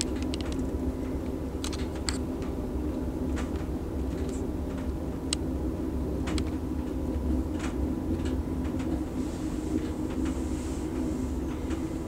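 Amtrak Coast Starlight passenger train heard from on board inside a tunnel: a steady low rumble of wheels on rail, with scattered sharp clicks and ticks.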